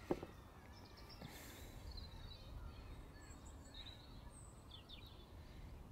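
Faint small-bird chirps and twitters over a low steady background rumble, with a soft knock at the very start.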